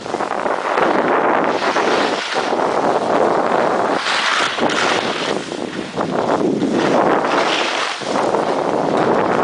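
Wind rushing over the microphone of a camera carried by a moving skier, a loud, steady rush that swells and eases every second or two.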